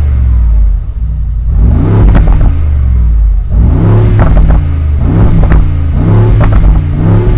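Brabus G800's twin-turbo V8, through its Brabus exhaust with the valves open in Sport Plus, revved repeatedly in Park from the driver's seat: about five throttle blips, each rising and falling in pitch, with sharp crackles as the revs drop.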